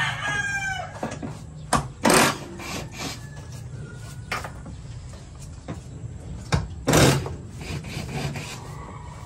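A hard plastic trim panel being handled and worked on: a handful of short scrapes and knocks, the loudest about two and seven seconds in. A rooster's crow trails off in the first second.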